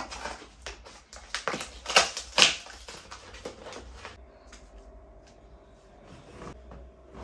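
Cardboard delivery box being cut with scissors and torn open: a run of crackling rips and snips, the two loudest about two seconds in. After about four seconds it drops to a quiet, steady room hum with a few faint knocks.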